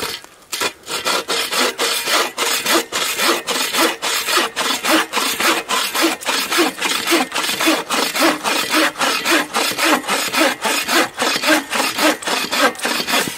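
Agawa Boreal21 folding bow saw cutting through an oak branch: a steady run of back-and-forth strokes, about three a second, starting about half a second in and stopping near the end.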